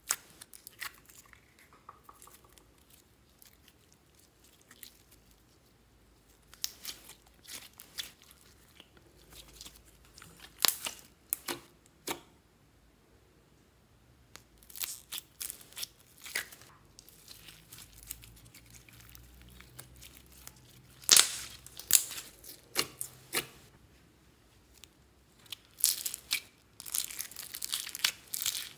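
Thin plastic slime tubs crinkling and clicking as they are handled and squeezed to push slime out. Scattered sharp clicks and crackles, growing denser near the end.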